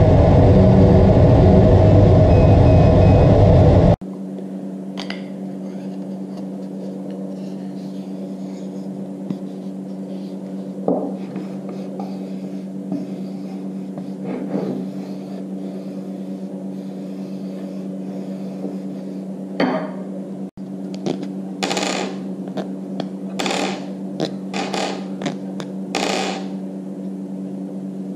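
A 60 W CO2 laser cutter running loud and steady while it cuts plywood, stopping abruptly about four seconds in. Then a steady hum under small clicks and scrapes of plywood sleeve plates and a Teflon tube being handled and fitted together, with a run of sharper clicks in the last several seconds.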